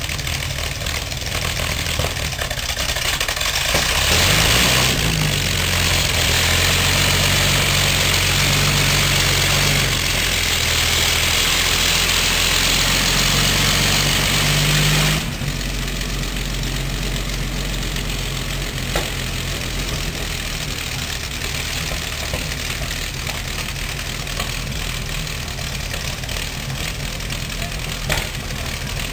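Panther tank's Maybach V12 petrol engine idling, then revving up about four seconds in and running hard for about ten seconds while the tank moves, before dropping back abruptly to a steady idle.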